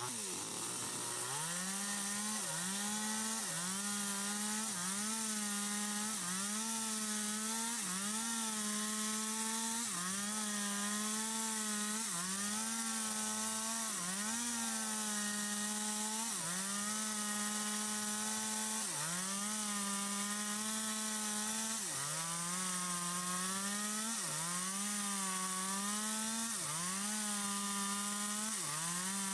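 Stihl MS 250 two-stroke chainsaw with a long 25-inch bar running at full throttle through wood, its engine pitch dipping briefly and climbing back about once a second as the chain bogs down in the cut.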